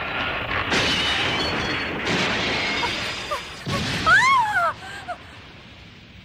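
Animated-soundtrack sound effects: a loud rushing noise for about three seconds, a sudden thump, then a short warbling tone that rises and falls twice before dying away.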